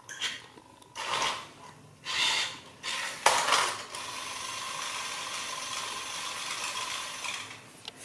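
Toy remote-control car's small electric motor and gears whirring in three short bursts, then running steadily for about four seconds while the car lies on its roof with its wheels free.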